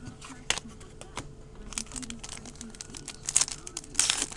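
Trading cards being handled and shuffled, with crinkling and light sharp clicks that get busier near the end.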